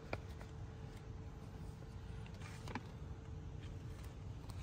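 Quiet background with a faint steady hum, broken by a couple of light clicks and rustles from a paper sheet of vinyl stickers being handled and peeled.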